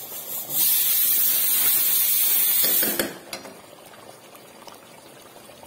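A loud, steady hiss starts about half a second in and cuts off suddenly about two and a half seconds later. After it come faint scrapes and taps of a steel spatula stirring a pan of simmering chicken curry.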